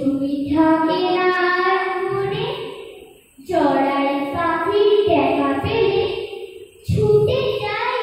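Children singing together, holding long notes in phrases, with short breaks about three seconds in and again near seven seconds.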